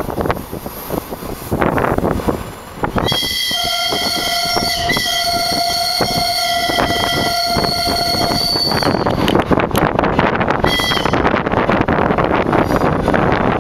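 Diesel train's horn sounding one long blast of about six seconds, then a short toot about two seconds later. Under it runs the noise of the train under way, with rail-joint clicks.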